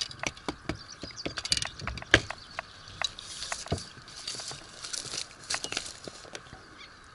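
A hooked asp being landed and handled: irregular clicks and knocks of fish and tackle, with a softer rustling stretch in the middle.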